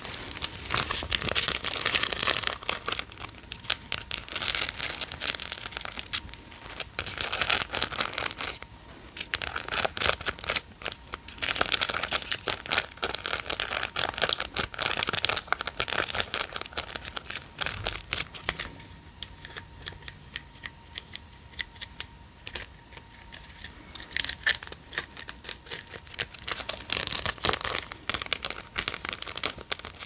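Plastic bags and cellophane packaging crinkling as they are handled and dug through, in bursts with short pauses.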